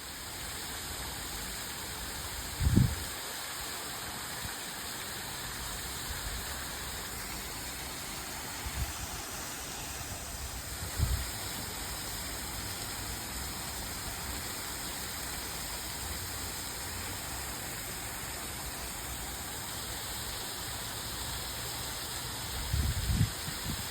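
Small ornamental waterfall: a steady, even rush of falling water, with three brief low thumps.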